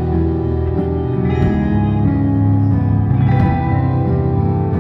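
A live band playing an instrumental passage: electric guitar over a drum kit, with held, sustained notes and occasional drum and cymbal hits.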